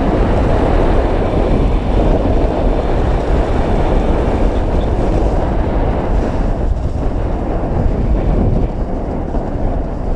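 Wind buffeting an action camera's microphone and skis scraping over packed snow during a fast ski descent: a loud, steady, low rumble.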